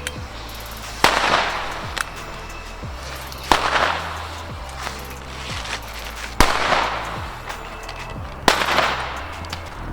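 Firecrackers from the XPlode Silvestergewitter banger assortment going off: four loud bangs two to three seconds apart, each trailing off in an echo, with a few smaller pops between. Background music with a steady bass line plays underneath.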